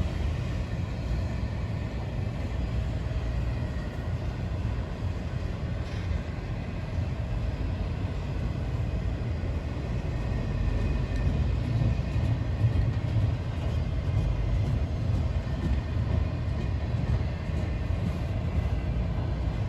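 A train rolling past with a steady low rumble that goes on without a break.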